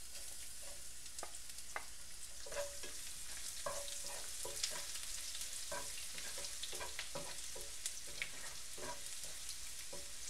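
Chopped ginger and garlic sizzling in hot oil in a pan with a steady hiss, stirred so that the utensil scrapes and knocks against the pan every half second to a second.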